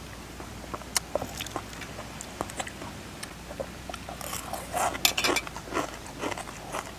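Metal spoon clinking against a ceramic bowl, then close-up chewing and crunching of a mouthful of food. The crunching is densest and loudest about four to five seconds in.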